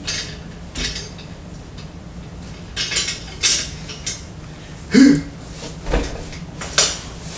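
Metal clinks and clanks from a home weight bench: the weight plates and steel frame knock as its arm and leg-extension attachments are worked, about six sharp knocks in all.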